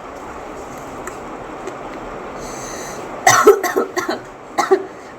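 A woman coughing from the heat of raw chili peppers: a cluster of harsh coughs about three seconds in and one more near the end.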